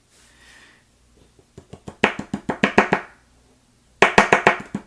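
Two quick runs of small hard taps and clicks, about ten a second, from the gutted American 1300-series padlock's plug and pin tumblers being worked to get the pins out of their chambers.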